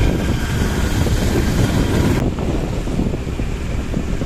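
Wind buffeting the microphone of a phone filming from a moving vehicle, a loud, steady low rumble mixed with road noise. A hiss above the rumble drops away suddenly about halfway through.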